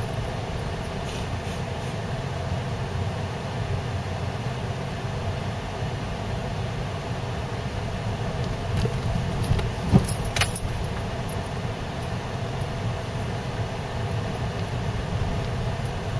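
Cabin noise of a car driving slowly over rutted, packed snow: a steady rumble of engine and tyres, with faint rattles and a sharp knock about ten seconds in.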